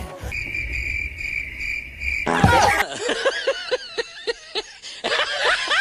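Cricket chirping sound effect, a steady high trill for about two seconds, then a short burst followed by a run of short squeaky chirps that rise and fall in pitch.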